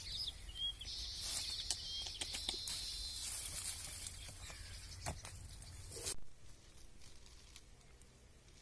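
Leaves and stems of a stinking passionflower vine rustling and crackling with scattered sharp snaps as fruit is picked by hand. The sound drops off abruptly about six seconds in, leaving a fainter rustle.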